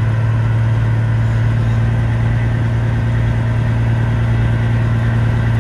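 Peterbilt semi truck's diesel engine running steadily, heard from inside the cab: an even, low drone that does not change.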